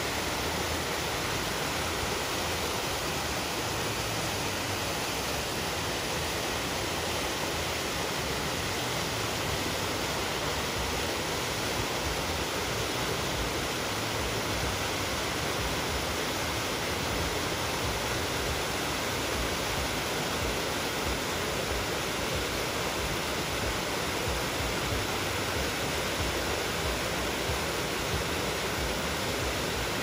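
Cupid Falls, a little waterfall spilling over rock ledges, rushing steadily as white water.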